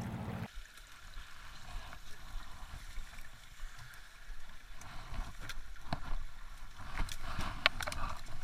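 A low hum cuts off abruptly just after the start. Then comes stream water running, with rustling and scattered knocks and clicks as people clamber over a fallen tree trunk lying across it. The knocks are thickest from about five to eight seconds in.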